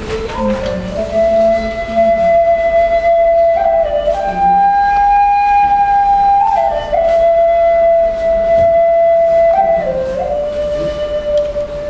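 Handmade wooden end-blown flute playing a slow solo melody: long held notes that step up and down, with short ornamental turns between them.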